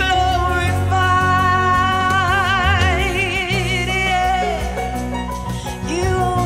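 Gospel worship song: a woman's voice holding long notes with wide vibrato over instrumental accompaniment with a sustained bass.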